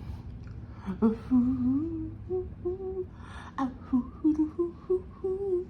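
A woman humming a short tune, a string of brief held notes stepping up and down, with a couple of sharp clicks among them.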